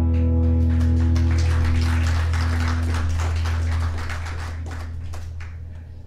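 The last held chord of a recorded contemporary Christian pop song, a steady low chord that fades away over the last two seconds. Over it runs a flurry of rustling and tapping.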